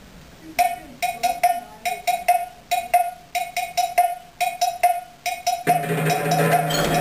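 Music opening with a syncopated rhythm of short, pitched percussion knocks, a few to the second. Near the end a full band with electric guitar, bass and drums comes in.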